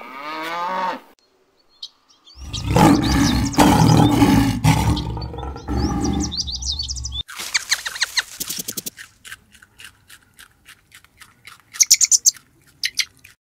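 A cow's moo trails off, then a lion gives a loud, deep roar with birds chirping over it. After that come a run of quick clicks and a short burst of high bird chirps.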